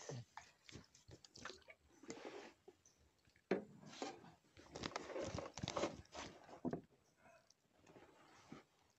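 Quiet, irregular handling noises: rustling, small clicks and knocks as a bamboo fishing pole and line are handled in a small boat, with a sharper knock about three and a half seconds in.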